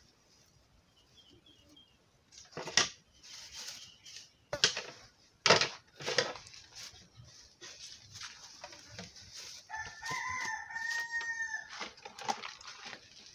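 A rooster crows once, a long call of about two seconds near ten seconds in. Before it come several sharp knocks and clatters with plastic rustling as dishes and a plastic bag are handled close by; these clatters are the loudest sounds.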